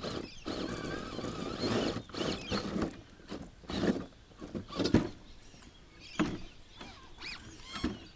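Brushed 35-turn electric motor and gear drive of a Vaterra Ascender Blazer RC rock crawler whining in stop-start throttle bursts, rising and falling in pitch during the first couple of seconds. Short scrabbles and a few knocks come from the truck working over rock.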